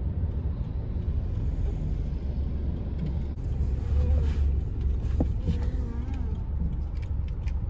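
Steady low rumble of a moving road vehicle, as heard riding inside it through town streets.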